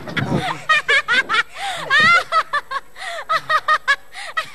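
A person laughing in a quick string of short, high-pitched bursts.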